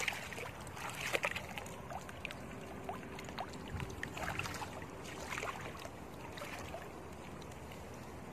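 Shallow water sloshing and splashing as a woven bamboo basket scoop is dipped and lifted, with water trickling out through the weave. Small splashes come irregularly, more of them in the first half.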